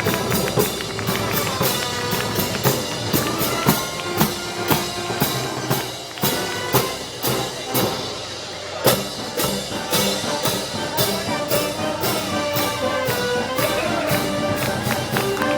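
Moros y Cristianos festival band music: held melodic notes over a steady, regular drum beat, with the drumming dropping out briefly just past the middle before a strong hit brings it back.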